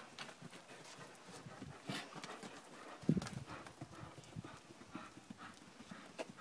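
Hoofbeats of a ridden horse on a sand arena surface, a run of soft knocks as it moves at a trot and canter, with the loudest hoofbeat about three seconds in as it passes close.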